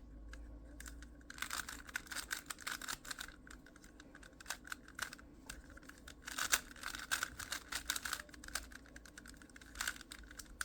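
Speed cube being turned by hand: the plastic layers click and snap in quick runs of turns, with short pauses between the runs.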